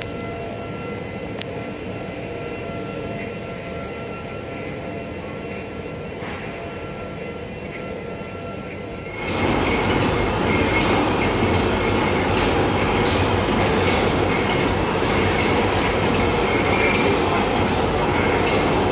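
Steady mechanical noise with a faint hum, jumping abruptly much louder about nine seconds in to a dense rumbling ride noise of a moving vehicle, with a thin high squeal.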